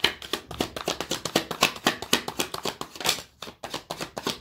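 A deck of tarot cards being shuffled by hand: a rapid run of card clicks and slaps, about ten a second.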